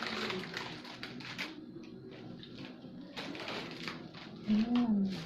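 Eating sounds: chewing and small clicks of a spoon and fork against a plate. About four and a half seconds in comes a short hummed voice sound that rises and falls in pitch, the loudest moment.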